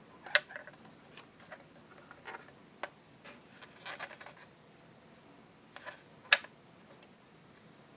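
Small plastic parts of a miniature toy kitchen clicking and tapping under fingers as its buttons and faucet are worked. Two sharp clicks, one just after the start and one about six seconds in, with lighter ticks and a brief rubbing in between.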